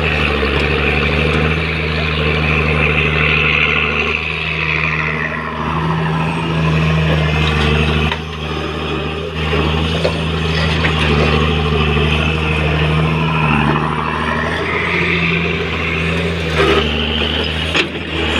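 Komatsu PC200 hydraulic excavator's diesel engine running steadily under working load as the boom and bucket dig and swing, with a higher whine that swells and fades. A couple of sharp knocks come near the end.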